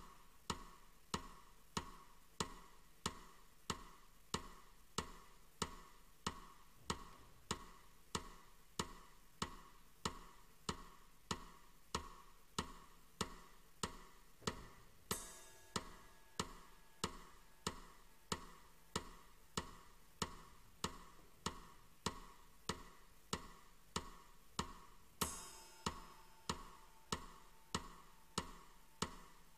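Metronome ticking steadily at about two ticks a second. Two brief bursts of hiss come in, one about halfway through and one about two-thirds of the way through.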